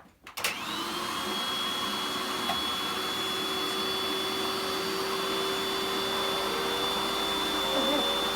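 Goblin Pet Pro vacuum cleaner switched on with a click, its motor spinning up within about half a second and then running with a steady high whine over the rush of air.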